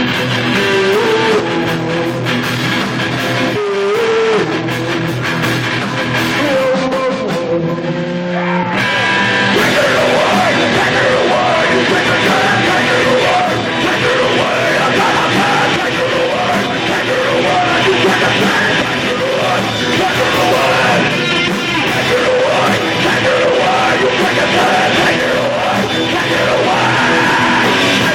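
Live rock band playing loudly with vocals; the sound gets denser and louder about nine seconds in as the full band comes in harder.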